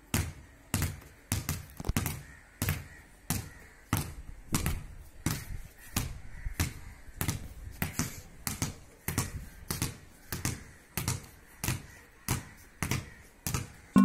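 Two balls, a basketball and a soccer ball, dribbled by hand on a hard tiled floor: a steady run of bounces, about two a second.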